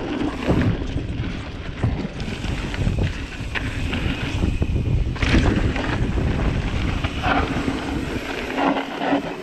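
Mountain bike rolling fast down a dirt trail, heard as heavy wind buffeting the action camera's microphone, with tyres on dirt and short knocks and rattles from the bike over bumps.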